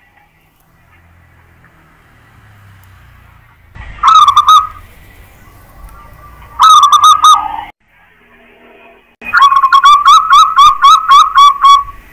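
Zebra dove (perkutut) cooing in three phrases of quick, rhythmic coo notes. The first two are short, and the last is a longer run of about ten notes near the end.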